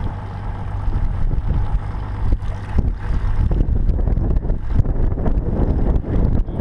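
Wind buffeting the microphone of a boat-mounted action camera: a loud, uneven low rumble. A steady low hum runs under it for the first few seconds, then fades.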